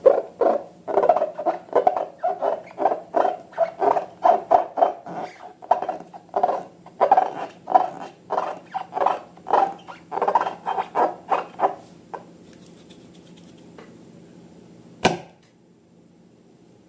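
Slime being squeezed and worked by hand, a rhythmic run of wet squishing about two to three times a second that stops about twelve seconds in, followed by a faint steady hum and one sharp click near the end.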